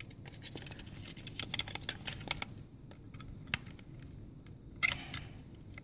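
Light plastic clicks and scrapes of a diversity receiver module being pushed into the module bay of a pair of Fatshark FPV goggles: a flurry of small taps over the first couple of seconds, a single click about three and a half seconds in, and a louder rustle about five seconds in.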